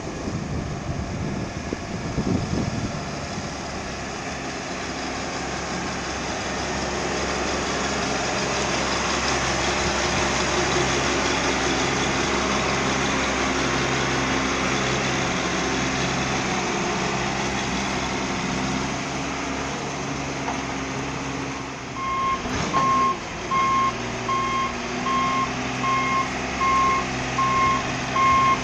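John Deere 710D backhoe loader's diesel engine running steadily. About three quarters of the way through, its reverse alarm starts beeping about once a second as the machine goes into reverse.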